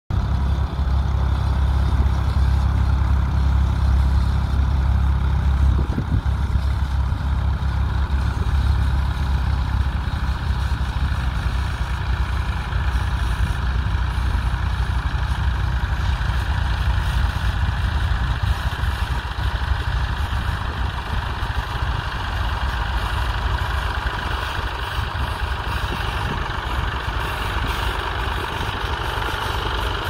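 Massey Ferguson 148's three-cylinder Perkins diesel engine running steadily under load as the tractor pulls a mounted plough through the soil.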